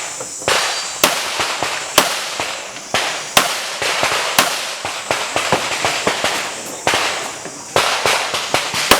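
Handgun shots fired in an IPSC practical-shooting match: an irregular string of single shots, roughly one or two a second, each with a short echo.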